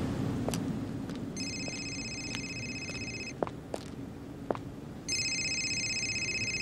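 Mobile phone ringing: a high, rapidly pulsing electronic ring, about two seconds long, heard twice with a pause of about two seconds between.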